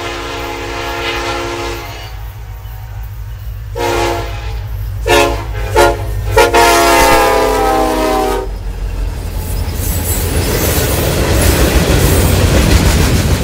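Union Pacific diesel freight locomotive sounding its air horn as it passes. A long blast runs into the start, a few shorter blasts follow, and a final long blast ends about eight and a half seconds in, all over the locomotive's engine drone. After that comes the rumble and clatter of the freight cars rolling by.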